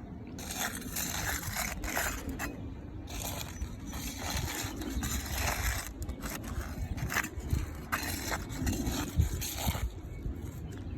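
Roof shingles being worked loose for replacement: irregular scraping and crackling strokes with a few sharp clicks.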